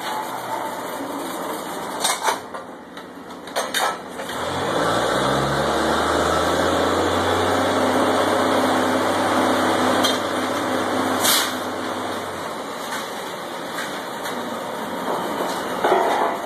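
Drilling rig engine running, revving up about four seconds in and holding a steady, higher pitch for some eight seconds before dropping back. Sharp metal clanks of pipe tongs and drill pipe come several times, loudest near the end.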